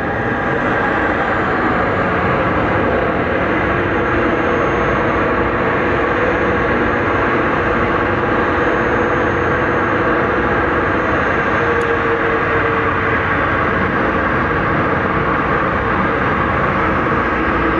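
Boeing 737-800's CFM56-7B jet engines at taxi power: a steady loud rush of engine noise with several held whining tones.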